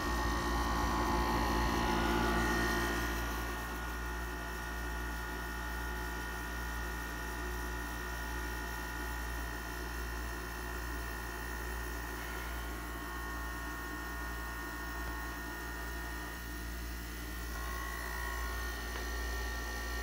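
RCA window air conditioner's compressor running on its own, without the fan: a steady hum.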